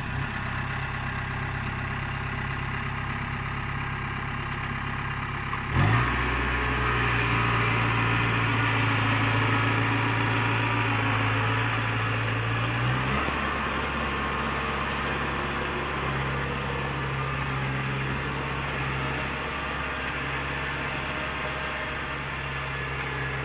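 Diesel engine of a Kubota DC-70 Plus rice combine harvester running steadily. About six seconds in its note changes suddenly and it runs louder for about seven seconds, then settles back to the earlier steady drone.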